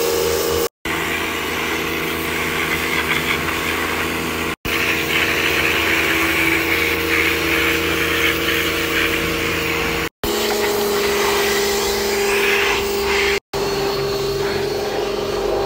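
Pressure washer running with a steady hum under the hiss of its water jet spraying a dirt bike's wheels and fender. The sound breaks off for an instant four times, and the hum settles slightly lower after about ten seconds.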